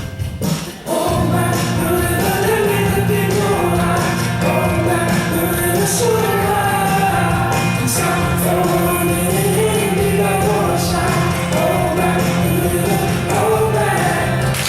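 Recorded pop-rock song with layered, choir-like vocals holding long notes over a steady band accompaniment. The music dips briefly and comes back in full about a second in.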